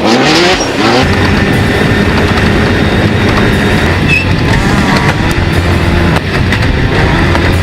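Class 10 off-road race buggy's engine running hard, climbing in pitch through the first second and then holding steady at high revs, over loud rough-terrain noise.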